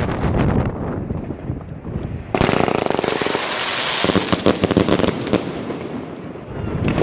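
Wolff Jackhammer 105-shot cake box firing a rapid, continuous stream of shots with crackling effects, turning suddenly louder and brighter about two and a half seconds in.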